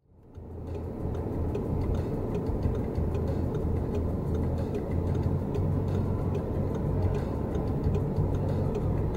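Steady low rumble of road noise inside a moving car, fading in at the start, with a faint regular ticking over it.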